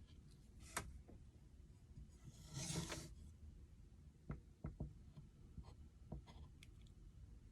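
Faint handling of small wooden pieces on a work surface: a light click, then a short scrape of wood rubbing about two and a half seconds in, followed by a few light taps and knocks.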